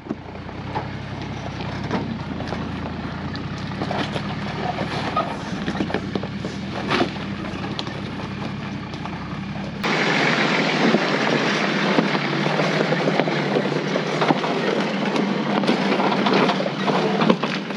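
Four-wheel drive driving over a rough dirt track: a steady engine rumble under road noise and scattered knocks and rattles. About ten seconds in, the sound changes abruptly: the low rumble drops out and a brighter hiss of tyres and wind takes over.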